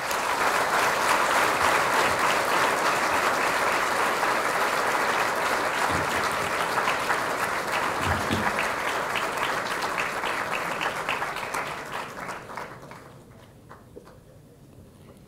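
Large audience applauding: the clapping starts at once, holds steady and full for about twelve seconds, then thins out into a few scattered claps and dies away near the end.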